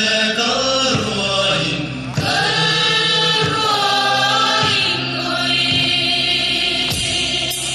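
A group of voices chanting a traditional Mizo folk song in unison, holding long notes and moving to a new phrase about two seconds in. A few sharp knocks come near the end.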